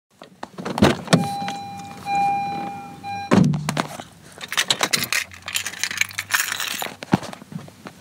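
A string of sharp clicks and knocks, with a steady electronic beep tone held for about two seconds starting a second in, then a spell of light metallic jingling and rattling.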